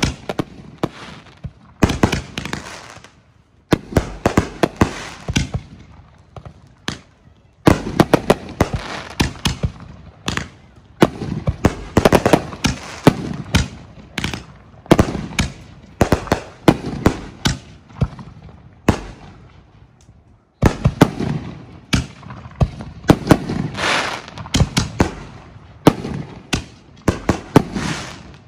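Aerial fireworks bursting in a dense finale barrage: rapid sharp booms one after another, with crackle between them. There are brief lulls a few times.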